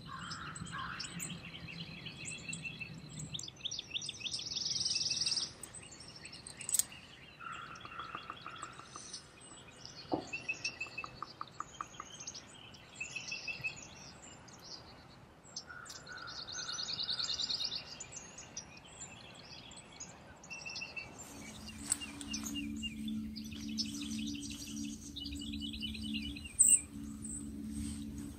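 Dawn chorus of wild birds: many overlapping chirps, whistles and quick repeated trills. Past two-thirds of the way in a steady low hum comes in under the birdsong, and a single sharp click sounds near the end.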